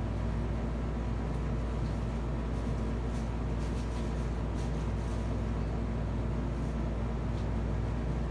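A steady, low background hum with an even haze of noise over it. A few faint, brief ticks sound within it.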